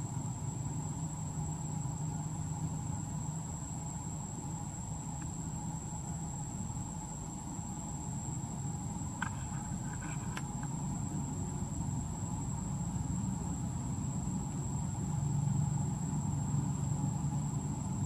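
Outdoor ambience: a steady low rumble under a continuous high insect drone. A few brief high chirps come about nine to ten seconds in.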